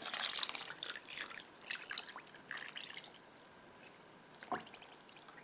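Chicken broth pouring from a plastic measuring cup into a skillet of sauce, splashing and trickling, then tapering off a little past halfway.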